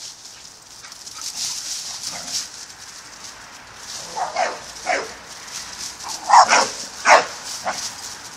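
Female pit bull barking: a few faint barks, then a run of about seven short, sharp barks starting about four seconds in, loudest in the last third.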